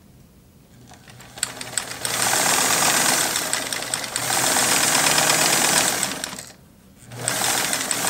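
Kenmore 1752 sewing machine stitching a zigzag through cotton fabric with household thread, starting up about a second and a half in and running at a steady speed. It stops briefly near the end, then starts sewing again.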